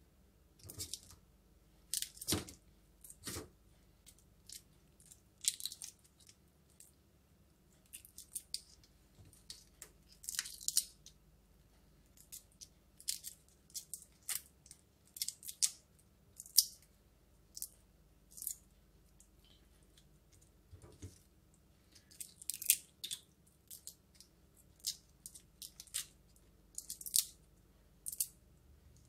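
Shells being pulled off cooked shrimp by hand: irregular crisp crackling and snapping of shell, in short clusters with gaps between.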